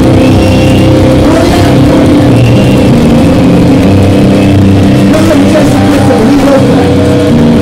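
A heavy metal band playing live at full volume: distorted electric guitar and bass hold ringing chords with a droning edge, recorded from the crowd so close to the PA that the sound is overloaded.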